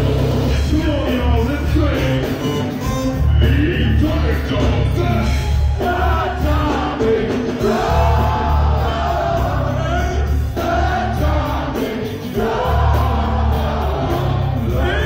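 Live funk band playing, with a heavy, repeating bass line that drops out briefly a few times, under several singers chanting together.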